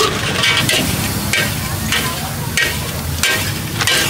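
A metal spatula scraping and clanging against a large wok as noodles are stir-fried, the food sizzling, with repeated strokes roughly every half second to a second over a steady low rumble.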